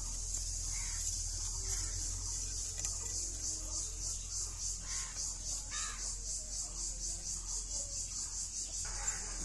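Insects, likely cicadas, buzzing in a high, even chorus that pulses about three times a second.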